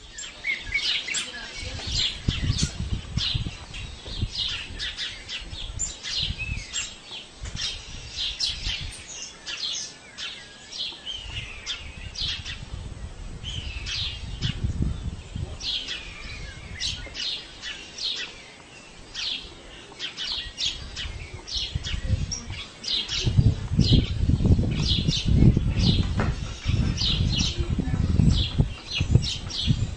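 Many small birds chirping and tweeting continuously, with a low rumbling noise underneath that swells and is loudest over the last several seconds.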